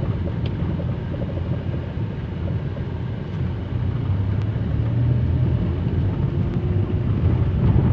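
Steady low rumble of a Suzuki car's engine and tyres heard inside the cabin while it drives over bumpy, uneven ground, with a few small knocks from the suspension. The driver takes the knocks for a sign of a fault in the suspension.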